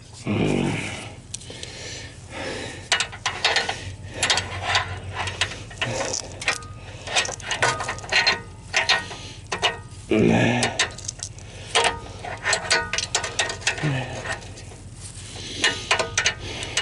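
Ratchet wrench clicking in repeated strokes as it works a socket on a seized oxygen sensor, with short metallic clicks and knocks throughout. The socket is slipping and rounding off the sensor.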